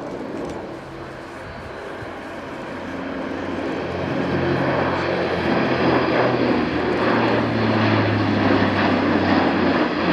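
Airbus A400M Atlas military transport flying past, the four TP400 turboprop engines and propellers giving a low droning hum over a rush of engine noise. It grows louder over the first four seconds or so as the aircraft closes in, then holds steady.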